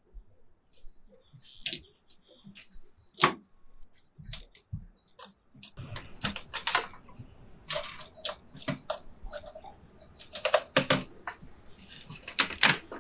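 Small birds chirping, then hard plastic clicks and clatter as the parts of a Cuisinart food processor are handled and fitted together: the clear bowl, lid and feed tube are snapped into place and the plug is pushed in. The motor is not running.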